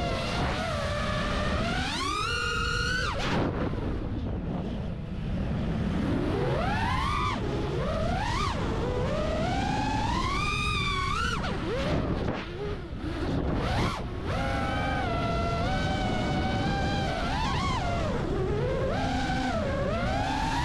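FPV quadcopter's electric motors and propellers, recorded from the onboard camera: a buzzing whine that keeps sweeping up and down in pitch as the throttle is worked, over a steady wind rush on the microphone. The whine drops back briefly about twelve seconds in.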